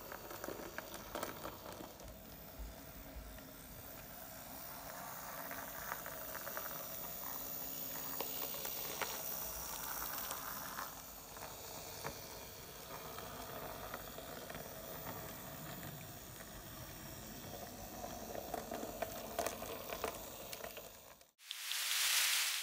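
Model VT 98 railbus running on a model railway: a steady hissy rolling noise from wheels and motor on the track, with scattered small clicks. Near the end it cuts off abruptly and a louder rush of hiss follows.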